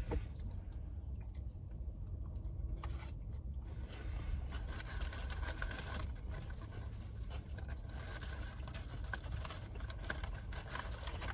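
Steady low rumble, with scattered small rustles and scrapes from about four seconds in, typical of food packaging being handled.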